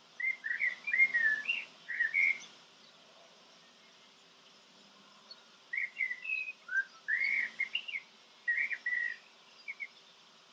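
A songbird singing two phrases of short, clear whistled notes that slide up and down, with a pause of a few seconds between the phrases.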